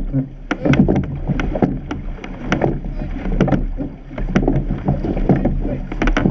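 Surf boat under oar: water splashing and rushing along the hull, with many sharp knocks from the oars working in their rowlocks. The sound swells and dips every couple of seconds.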